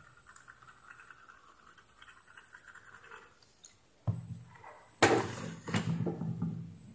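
A thin metal pick faintly scraping over the coating of a damaged metal-oxide varistor. About five seconds in comes a sharp knock, followed by a couple of seconds of handling noise.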